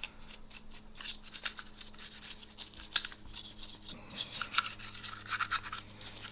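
Small cleaning brush scrubbing the metal parts of a Glock pistol wet with solvent, in quick, irregular scratchy strokes.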